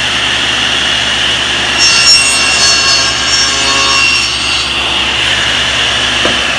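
SawStop table saw running steadily, its blade cutting through a piece of wooden rail stock for about two and a half seconds in the middle. This is a trial shoulder cut to check the blade height for a tongue.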